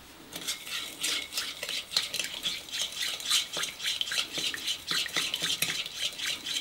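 A metal whisk stirring an oil-and-vinegar salad dressing in a glass bowl: rapid, continuous clinking and ticking of the wires against the glass.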